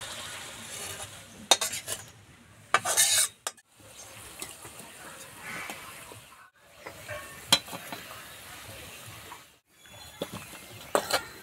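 A metal spatula scrapes and stirs thick tomato chutney in an iron kadai. Then kochuri sizzle in hot oil while a slotted spoon turns and lifts them. A few sharp metal clinks of spoon on pan and steel plate stand out.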